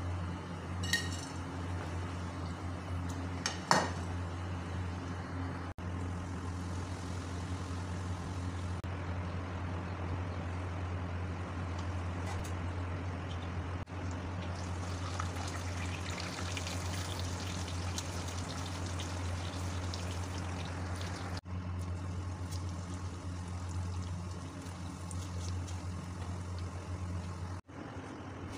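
Noodles deep-frying in hot oil in a karahi, a steady sizzle under a low, even hum. A metal slotted spoon strikes the pan twice in the first few seconds, the first strike ringing.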